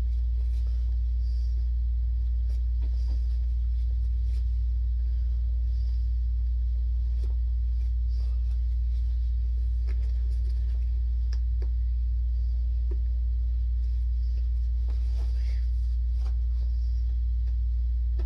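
A steady low hum, with faint scattered taps and rustles of hands working at a cardboard shipping box to get it open.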